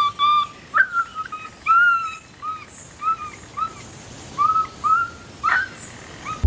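A series of about ten short whistled notes, each a brief arched note at much the same pitch, with a quick upward-sweeping note near the start and another about five and a half seconds in.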